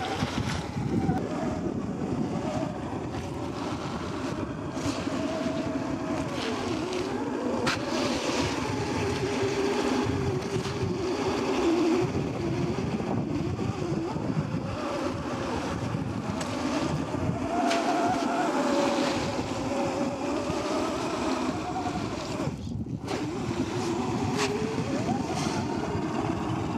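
Brushed 540 electric motor and gear drivetrain of a 1/10-scale SCX10 II RC crawler whining, its pitch rising and falling with the throttle, over the crunch of tyres on loose gravel. Near the end the tyres churn and splash through shallow water.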